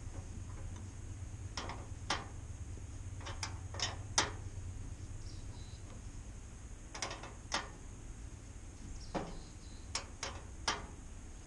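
Socket ratchet wrench clicking in short, irregular bursts as a bolt is worked loose, over a low steady hum.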